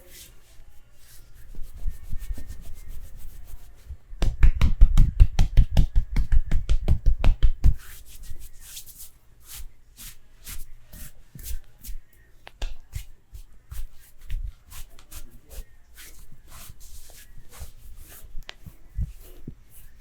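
Massage by hand: skin rubbing, then about four seconds in a rapid run of percussive hand strikes, about seven a second for some three and a half seconds, followed by lighter rubbing with scattered sharp clicks and slaps.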